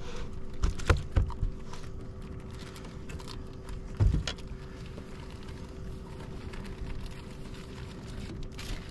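Knocks and thumps on a bass boat's deck as a freshly caught bass is handled and unhooked: a few light knocks in the first second or so and a louder thump about four seconds in, over a faint steady hum.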